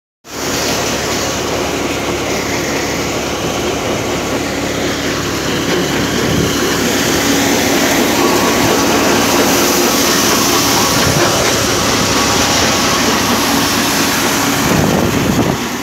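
Belt-driven thresher running at speed: a loud, steady mechanical running noise with a steady low hum, getting a little louder about six seconds in.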